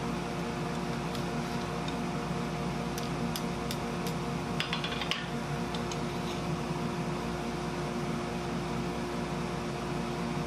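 Steady rush and hum of the forge's air supply, with a few light metallic clicks of steel tongs against the hot workpiece and anvil one to five seconds in, and a short burst of clicking and scraping near the middle.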